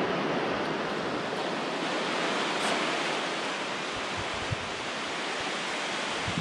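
Surf on an incoming tide breaking and washing up a sandy beach: a steady rushing. Wind buffets the microphone with low rumbles in the second half.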